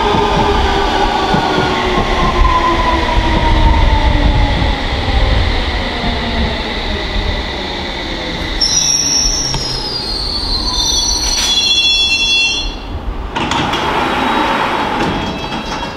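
London Underground District line S7 Stock train braking into the platform: its motor whine glides steadily down in pitch as it slows. High-pitched wheel and brake squeal stepping down in pitch follows about halfway through as it comes to a stop, and a broad rush of noise starts near the end.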